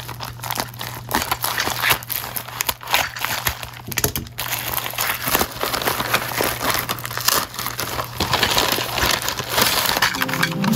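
Plastic bubble mailer being torn open and crumpled by hand: irregular crinkling and crackling with tearing. Near the end a paper bag rustles as it is handled.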